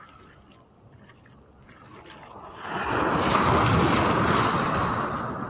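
Ocean wave breaking right at a microphone held at water level: the rush of whitewater swells about two seconds in, stays loud for a couple of seconds, then fades.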